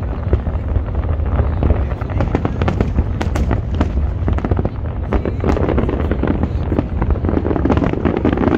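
Aerial fireworks display at its height: many shells bursting in rapid, overlapping bangs with crackling in between, over a constant deep rumble, with no pause.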